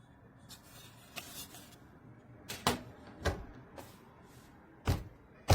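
Handling noise: light rustling, then four or five sharp clicks and knocks, the loudest near the end.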